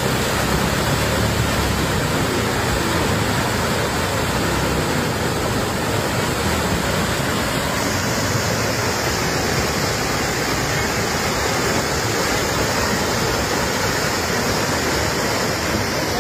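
Muddy flash-flood torrent rushing over a road, a steady, loud rush of fast water carrying mud and debris.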